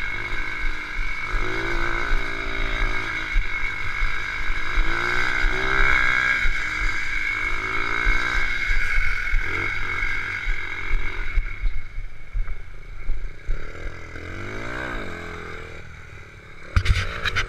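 Honda Monkey minibike's 72cc single-cylinder four-stroke engine riding along, its pitch climbing again and again as it pulls through the gears, with wind rumbling on the microphone. A few sharp knocks come near the end.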